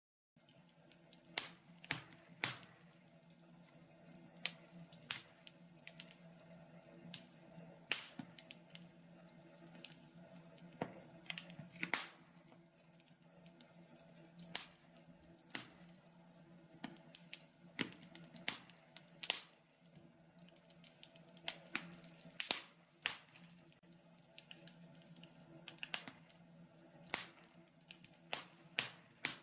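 Wood fire in a fireplace crackling, with irregular sharp pops and snaps, several a second at times, over a faint steady hum.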